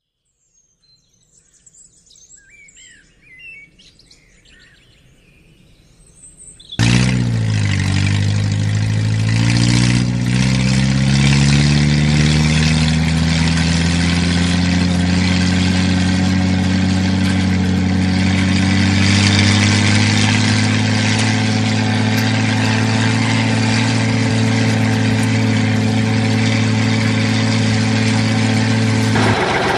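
Faint bird chirps, then about seven seconds in a loud engine sound starts abruptly. Its pitch dips and climbs, then settles into a steady idling drone that changes just before the end.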